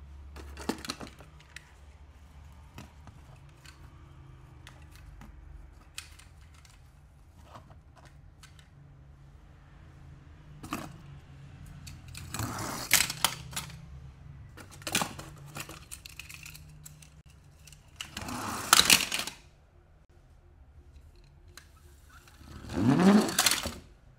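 Die-cast toy cars being handled: scattered light clicks and clinks as they are picked up and set down. Three louder clattering rattles come about halfway through, at about three-quarters, and near the end.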